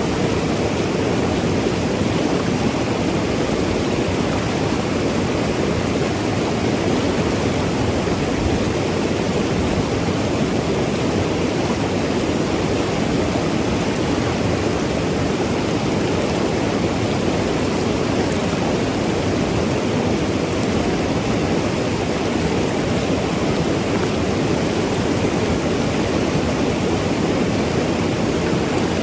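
Mountain river rushing and gurgling over rocks, a steady full rush of water.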